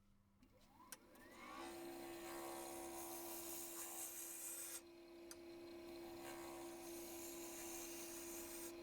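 Axminster AT1628VS wood lathe speeding up with a rising whine, then running with a steady hum. A skew chisel shaves along the spinning holly blank with a hissing cut, lifting off for half a second about five seconds in.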